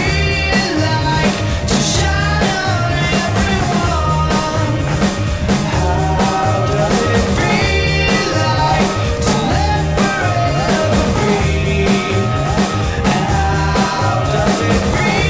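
Rock song with a steady drum beat and a singing voice.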